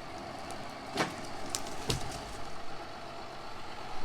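John Deere loader tractor engine running steadily, with two sharp knocks about one and two seconds in.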